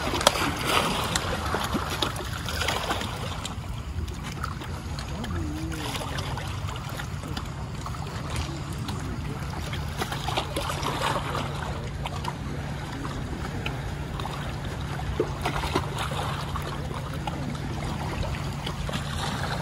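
A steady low hum under a constant rushing noise, with a few faint clicks near the end.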